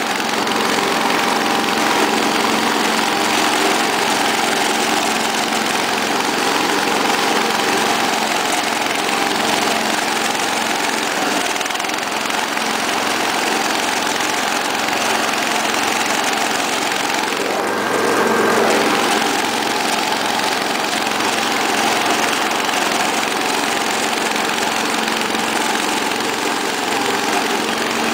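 Cub Cadet 127 garden tractor's single-cylinder Kohler engine running steadily under load, driving its 48-inch mower deck through the grass. The engine note swells briefly about two-thirds of the way through.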